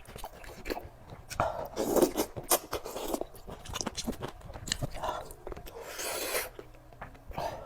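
A person chewing and smacking food close to the microphone, with many small mouth clicks and a breathy hiss near the end.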